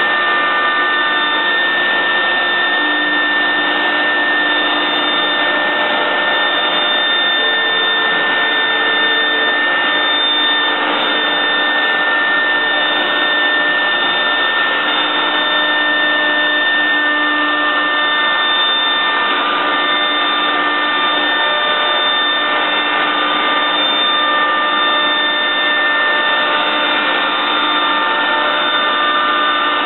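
Techno Isel CNC router cutting MDF, its spindle and dust extraction running together: a steady rushing noise with steady high whining tones over it.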